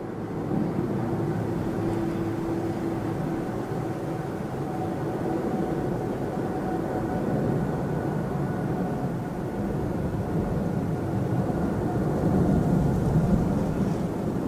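Twin Rolls-Royce Trent 800 turbofans of a Singapore Airlines Boeing 777-200ER at low taxi thrust as the jet turns onto the runway: a steady distant rumble with a faint hum in it, growing a little louder near the end.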